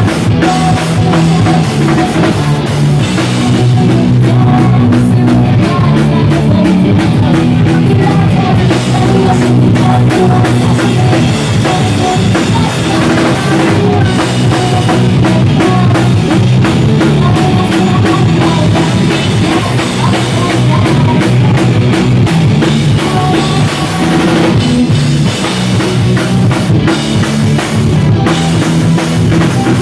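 Pop-punk band playing live and loud: electric guitars and a drum kit, with the drummer keeping a steady driving beat.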